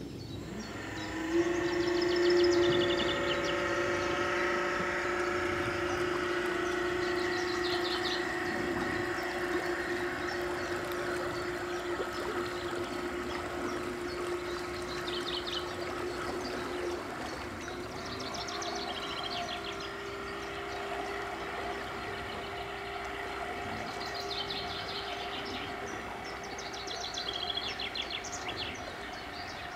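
Brushless electric outboard motor, a CREE MH 3 80 prototype built into a 6 hp petrol outboard's housing, running with a steady whine that starts about a second in and fades slowly as the boat moves off; its pitch steps up slightly about halfway through. Birds chirp now and then.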